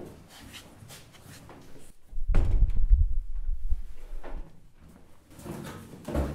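Cardboard boxes being put down and handled on office tables: small knocks and rustles, a loud deep thud about two seconds in, and another knock near the end.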